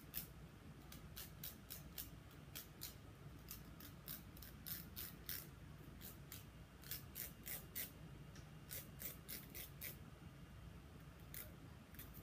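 Faint, short scratchy strokes of a nail file across the tip of a fingernail, filing off the overhanging edge of a Jamberry nail wrap at a right angle. The strokes come in quick runs of several, with short pauses between runs.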